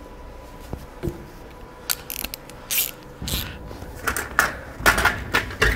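Hand socket ratchet clicking in short runs, from about two seconds in, as an 8 mm airbox-lid bolt is turned loose.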